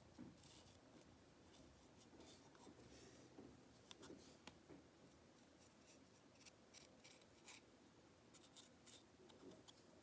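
Faint, irregular short scratches of a small paintbrush dabbing and stroking paint onto a sculpted clay cup, with light handling of the piece.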